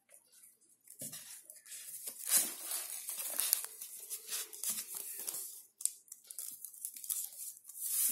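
Stiff gold-coloured paper crinkling and rustling as it is wrapped and pressed around a cardboard tube, a close run of crackles and scrapes starting about a second in.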